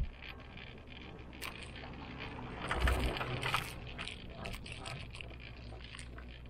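Gondola cabin of an aerial cable car running along its rope, with light metallic rattles and ticks. About three seconds in comes a low rumbling clatter, the cabin's grip rolling over the sheaves of a line tower.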